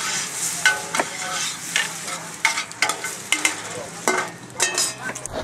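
Onions, garlic and butter sizzling in a stainless pot over a charcoal fire, with a utensil stirring and scraping against the pot in a run of metal clicks and scrapes.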